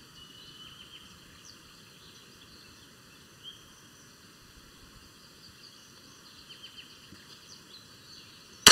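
Faint outdoor background with small, scattered bird chirps, then, right at the very end, a single sharp shot from a Chiappa M9 pistol in .22LR fired at a steel gong about 111 m off.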